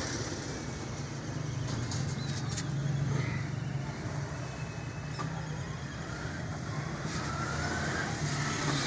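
A steady low mechanical rumble, like an engine running nearby, continues throughout.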